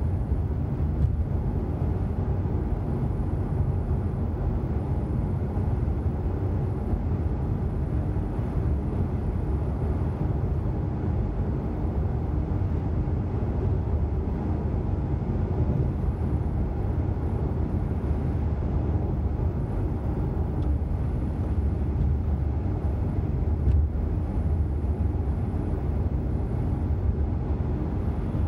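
Steady low rumble of a car's tyres and engine heard from inside the cabin while cruising on a dual carriageway, with a faint steady hum and no changes in pace.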